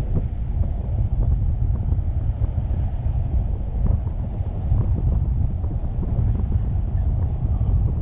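Wind buffeting the camera's microphone on a moving car, a heavy, fluttering low rumble with road noise underneath.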